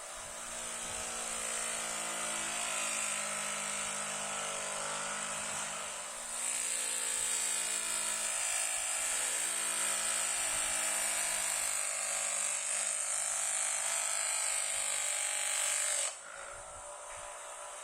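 Small electric power tool motor running steadily, its pitch and load shifting. It grows louder about six seconds in and drops away abruptly near the end.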